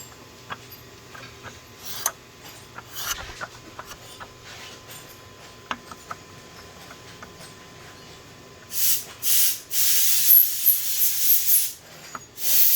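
Faint scattered clicks and taps, then from about nine seconds in a run of loud hissing spray bursts, several in a row with short gaps.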